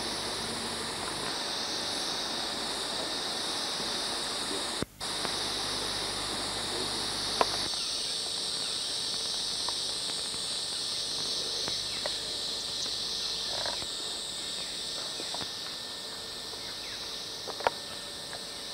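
A steady, high-pitched chorus of insects, with a brief cut-out about five seconds in and a few faint clicks.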